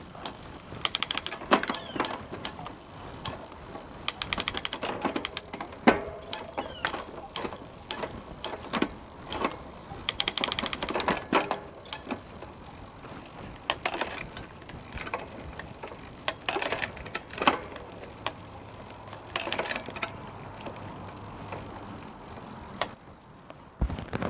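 Bicycle thumb shifter and drivetrain being worked through the gears after a spray of brake cleaner, the cleaner sprayed in to free the shifter's stiff old grease. Several bursts of rapid ratchet clicking, each lasting a second or two, come every few seconds, with single clicks between them.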